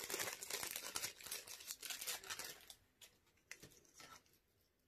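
Clear plastic packaging bag crinkling and rustling as a gold chain necklace on its card is handled and pulled out, for about two and a half seconds. After that only a few faint clicks.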